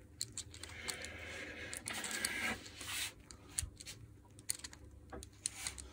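Worn gear and clutch from a Makita HR2450 rotary hammer's gearbox, worked against each other by hand. A scraping rattle runs for a couple of seconds, then scattered metallic clicks follow, as the parts slip on their worn engagement faces.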